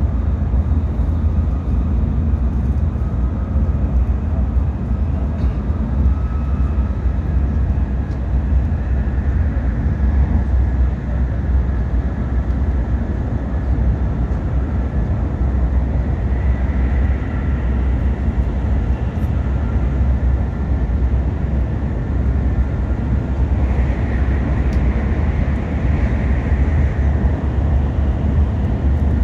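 Tokaido Shinkansen train running, heard from inside the passenger cabin: a steady deep rumble, with a faint high hum that swells twice in the second half.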